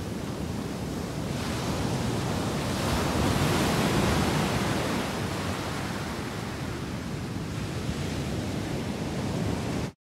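Ocean surf washing onto a beach, a steady rushing noise that swells a few seconds in, with some wind on the microphone.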